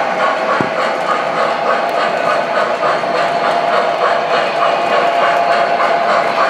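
O scale MTH 4-6-4 New Haven Hudson model steam locomotive running, its onboard sound system chuffing in a quick, even rhythm over a steady hum.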